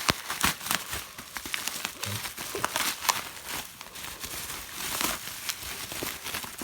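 Parcel packaging being unwrapped by hand, crinkling and tearing in a dense run of irregular crackles.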